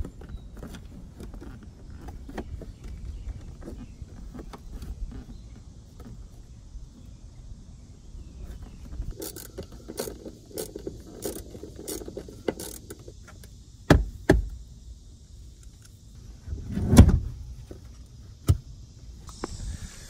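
Plastic interior trim panels and a speaker bezel being handled and fitted back into a 1986 Pontiac Fiero GT's cabin: scattered clicks and rattles, a quick run of clicks in the middle, and two heavy thumps later on as the panels are pressed home.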